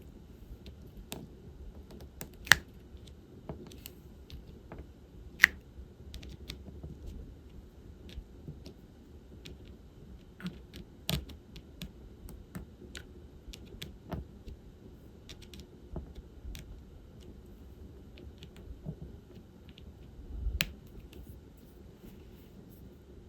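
Irregular small clicks and taps of diamond-painting work: a drill pen picking resin drills from a plastic bead tray and pressing them onto the canvas. Two sharper clicks come within the first six seconds, and a louder cluster of knocks about twenty seconds in.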